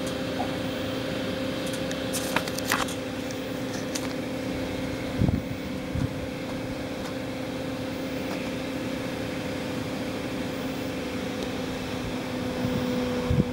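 A steady mechanical hum with two even tones, like a fan or motor running, with a couple of sharp clicks about two and a half seconds in and dull bumps around five and six seconds in.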